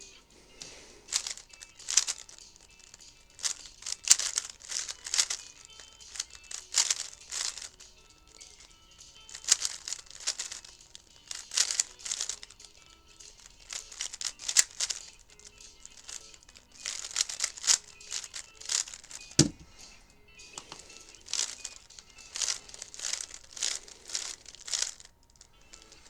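A 3x3 speedcube being turned fast by hand: its plastic layers click and rattle in quick runs of turns, broken by short pauses. There is a single low thump about two-thirds of the way through.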